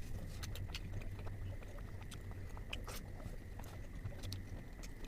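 Close-miked chewing of paneer butter masala: irregular soft, wet mouth clicks and smacks.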